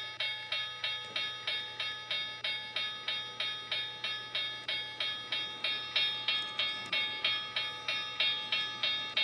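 Model railroad crossing signal's bell ringing steadily, about two and a half dings a second, while the gates are down. Under it, a LEGO train runs past with a low rumble.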